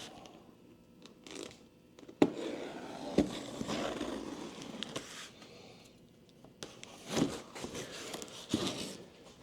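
Large cardboard speaker carton being handled and opened: scraping and tearing of cardboard and packing tape, with two sharp knocks about two and three seconds in.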